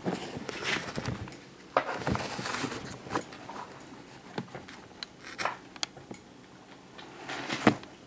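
Nile monitor lizard's claws clicking and scraping on a computer keyboard and desk as it crawls: scattered light clicks and short scratchy rustles, with the sharpest click near the end.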